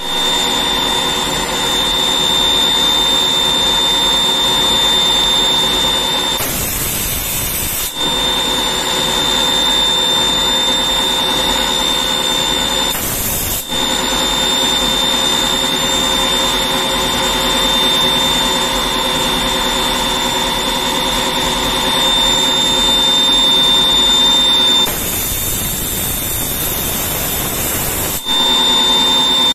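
CNC machining center's spindle running with a steady high-pitched whine as a small end mill cuts a pattern into a metal cylinder turned on the fourth (rotary) axis. The whine drops out three times, about 6 s, 13 s and 25 s in, giving way to a high hiss before it returns.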